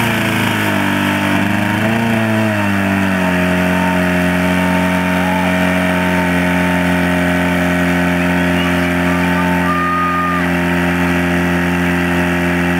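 PS 8 portable fire pump engine running hard, pumping water into the attack hoses. Its pitch dips and wavers for the first three seconds as the throttle is worked, then holds steady.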